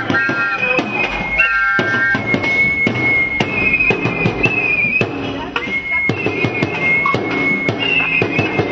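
Noisemaking of a street protest march: a long, shrill, steady whistling over a constant clatter of banging and drumming.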